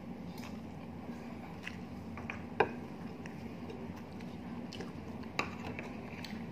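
Metal fork and spoon clinking and scraping against a plate while eating, a few light clicks with the sharpest about two and a half seconds in and another about five and a half seconds in, over soft chewing and a low steady room hum.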